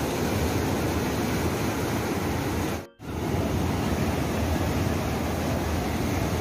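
Ocean surf breaking and washing up the beach, a steady rush of noise that cuts out for a moment about three seconds in.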